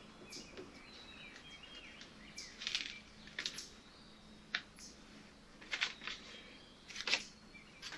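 Hands handling a fibreglass repair patch on a plastic kayak hull, peeling its backing and pressing it down: about five brief, soft rustling scrapes at uneven intervals.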